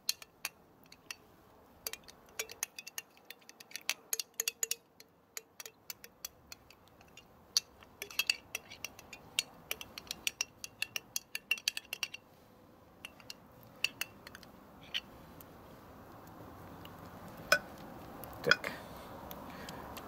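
Metal utensil scraping and clinking inside a tin can of tomato paste as the paste is dug out: a quick irregular run of small clicks and scrapes, thinning out after about twelve seconds, with a couple of sharper ticks near the end.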